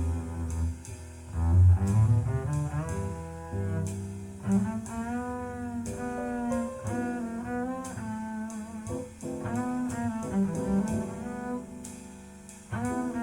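Instrumental passage of a slow jazz ballad played back through JBL 4307 studio monitor loudspeakers. Deep double bass notes are strongest in the first couple of seconds, and after that a sliding, wavering melody line carries on above the bass.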